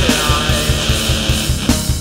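Heavy nu metal/groove metal music: distorted electric guitar and bass over a fast, driving kick-drum pattern, with no vocals.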